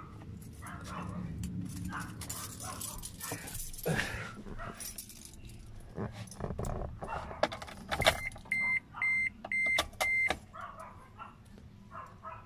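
Keys jingling and clicking in an Isuzu D-Max's ignition, then, as the ignition is switched on, the dashboard warning chime sounds five short, evenly spaced beeps about eight seconds in.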